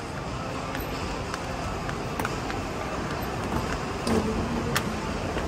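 Steady background noise of a busy shopping mall, with faint footsteps ticking irregularly and a brief voice about four seconds in.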